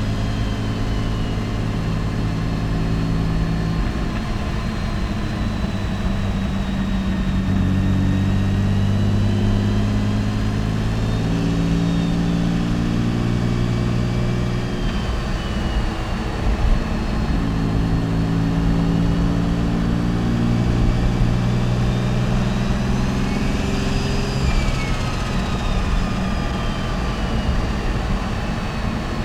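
Mitsubishi 3000GT VR4's turbocharged V6 running at low, even load while driving, its engine note shifting in steps, with a faint high whistle rising and falling a few times.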